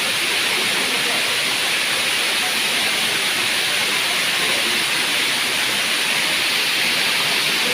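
Waterfall: a steady, loud rush of falling water crashing onto rock.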